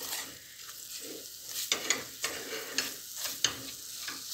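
A spatula stirring and scraping chopped onions and flour around a stainless steel pot, in irregular strokes about two a second, over a faint sizzle of oil on low heat: the flour is being toasted with the fried onions in olive oil.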